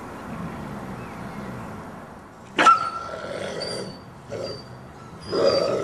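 Wolf giving a sudden sharp yelp about halfway through, then a few shorter cries: the submissive wolf, lying on its back under a dominant packmate, crying out although it is not bitten.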